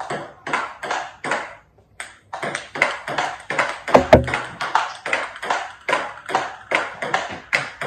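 Table tennis rally: the celluloid ball clicking back and forth between paddles and the tabletop in a quick, even rhythm of about three hits a second. There is a short break about two seconds in, and a louder, deeper knock about four seconds in.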